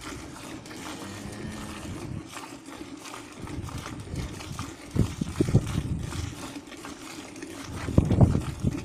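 Cow being milked by hand: repeated squirts of milk into a steel bucket partly full of frothy milk. A couple of louder low rumbles come about five seconds in and near the end.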